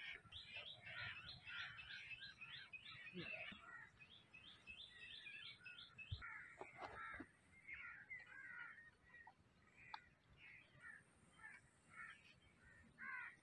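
Faint background birdsong: many short chirps and calls from several birds, with a few faint knocks around the middle.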